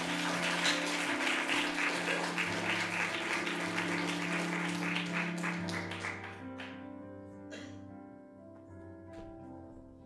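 Audience applauding over music. The applause dies away about six seconds in, and the music carries on more quietly.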